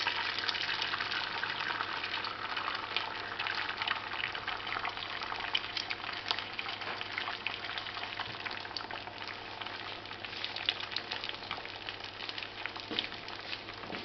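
Beaten egg sizzling and crackling in hot oil in a small frying pan, just after being poured in; loudest in the first few seconds, then easing a little.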